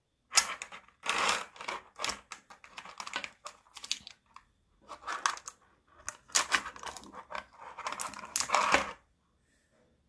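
Small 'cicada' singing magnets clicking and rattling against each other and against a clear plastic blister tray as they are picked out by hand, in a run of quick, irregular clicks with louder clusters.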